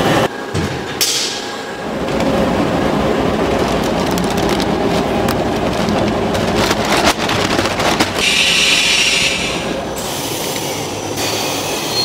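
Noodle-production machinery running: a steady mechanical rumble and clatter with scattered knocks. The sound shifts abruptly a few times.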